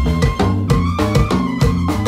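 Live band dance music: a Korg Kross synthesizer keyboard played over a bass line and a steady drum beat.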